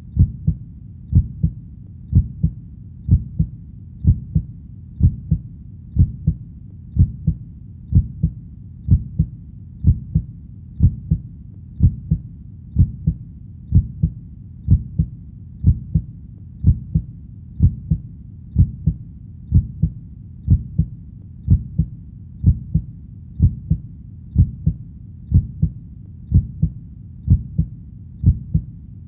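Heartbeat sound: a steady lub-dub, two low thuds in quick succession repeating about once a second, around 60 beats a minute.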